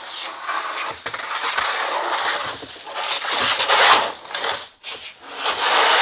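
Scraping and rustling of household objects being shifted and dragged around. It comes in uneven bursts, loudest about four seconds in and again near the end.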